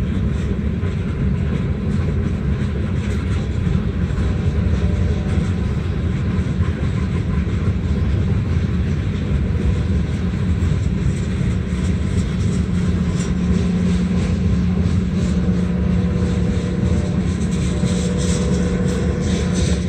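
Freight train of tank cars rolling past: a steady, loud rumble of steel wheels on rail, with a low steady hum joining in partway through.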